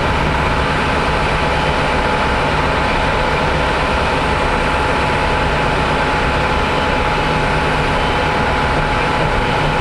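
Bus running at highway speed, heard from inside the cabin: a steady low engine drone with a constant hum and road noise, unchanging throughout.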